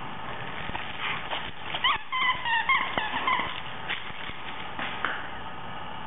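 A crunchy plush bird toy being stomped on by a pet, making scattered crunching clicks and, about two seconds in, a quick string of about eight short, high squeaks.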